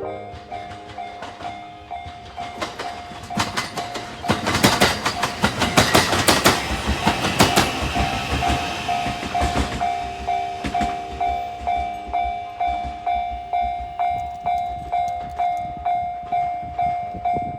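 A Japanese level-crossing alarm rings steadily at about two strokes a second. From about two seconds in, an electric train passes over the crossing, its wheels clattering over the rail joints and loudest around the middle. The train fades after about ten seconds, leaving the alarm ringing alone.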